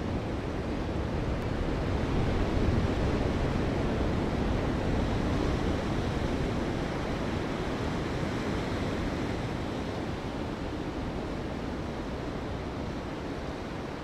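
A large waterfall's steady roar of falling water, swelling slightly a couple of seconds in.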